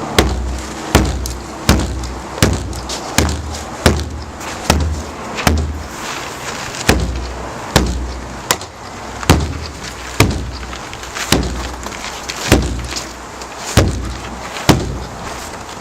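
Repeated hard blows against a low-density polyethylene flood barricade frozen solid with ice in its lower half: a sharp crack with a low thud, about one every three-quarters of a second, nearly twenty in all with a short pause in the middle. This is an impact test of the plastic in freezing cold; it does not crack.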